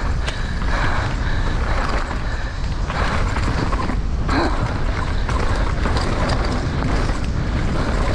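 Downhill mountain bike ridden flat out on a loose dirt track, heard from a rider-mounted camera: steady wind buffeting on the microphone over the rumble of tyres on dirt. Sharp clattering knocks from the bike hitting rough ground come a few times, most plainly about three and four seconds in.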